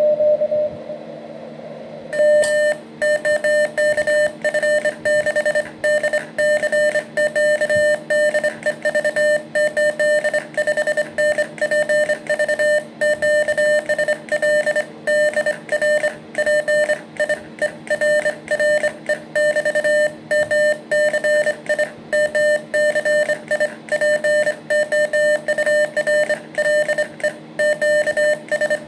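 Morse code sent on a bug key, heard as a CW tone from a homebrew SDR transceiver, keyed rapidly on and off in dots and dashes. The keying starts about two seconds in.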